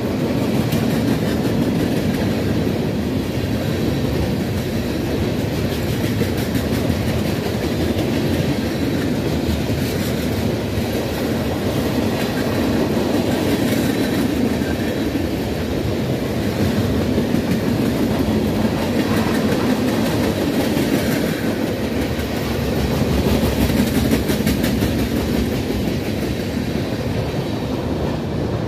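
Freight train rolling steadily past, its string of freight cars rumbling and rattling, with wheels clacking on the rails.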